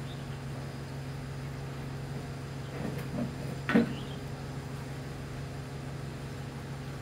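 A steady low hum with a few light knocks a little before the middle, then one sharp knock about four seconds in.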